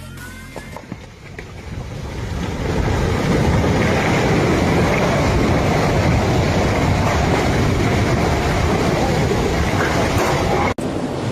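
Avalanche: a loud, steady rushing roar that builds over the first three seconds and then holds, cutting off abruptly near the end.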